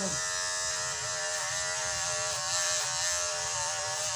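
Electric hair clipper running with a steady buzz as hair is cut, its pitch wavering slightly now and then.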